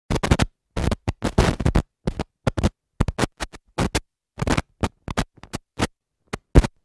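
Stuttering digital glitch sound effect: irregular short bursts of static-like noise, several a second, each cut off into dead silence.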